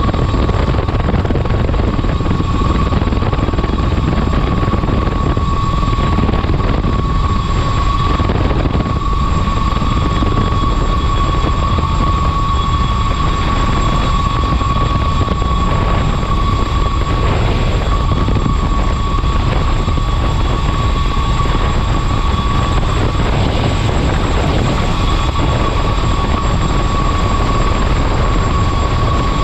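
Mosquito XET single-seat turbine helicopter in steady cruise flight, heard from inside its cockpit: constant loud rotor and engine noise with a steady high turbine whine over it.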